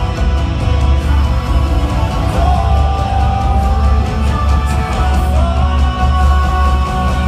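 Progressive rock band playing live: electric guitars over a heavy, steady bass-and-drum low end, with singing, heard loud from the audience.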